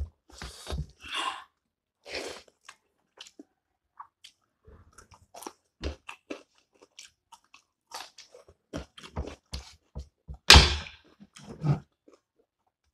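Close-miked eating sounds: a person chewing and crunching mouthfuls of rice, goat meat and pickle, with irregular wet mouth clicks and one louder burst about ten and a half seconds in.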